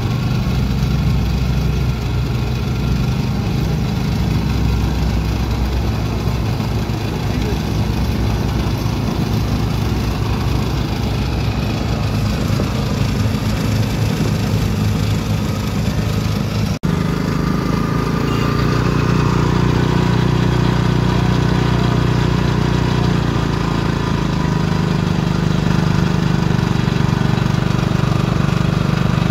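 Small engine running steadily, driving a sugarcane juice crusher through a belt as stalks are fed through its rollers. It briefly cuts out about 17 seconds in.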